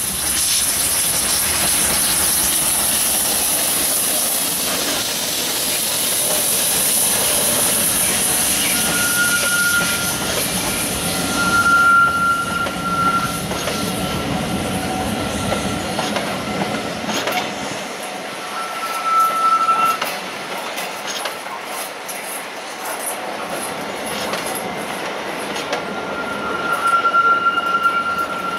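LMS Stanier Black Five 4-6-0 steam locomotive 44932 arriving with its train, with a loud steam hiss for the first ten seconds or so. Its coaches then roll slowly past over the curve, their wheels squealing against the rails four times and clicking over rail joints.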